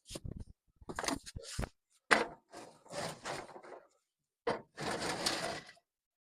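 Handling noises: a sharp knock about two seconds in, amid clicks and two stretches of rustling and scraping as things are moved around.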